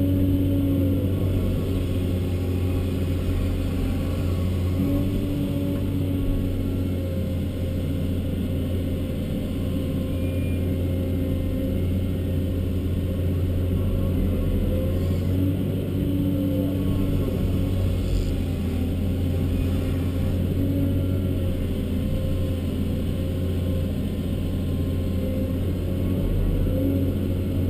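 Caterpillar 324D long-reach excavator's diesel engine running steadily, heard from inside the cab. Its held hum swells and eases a little as the hydraulics are worked to swing and dig.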